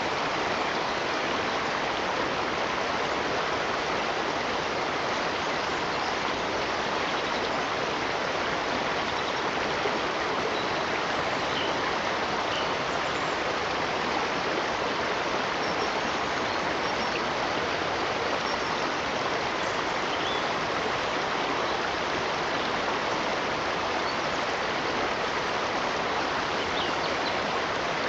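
Steady rushing of running water, like a stream, even and unbroken throughout, with a few faint short high chirps over it now and then.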